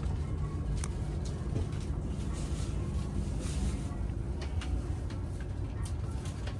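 Cabin ambience of a shinkansen car: a steady low rumble and hum, with a few light clicks and taps scattered through.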